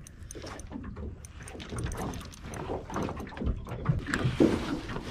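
Handling noises of fishing tackle: small irregular clicks and rustles as hook, line and lure are worked by hand, over a steady low rumble of wind and water.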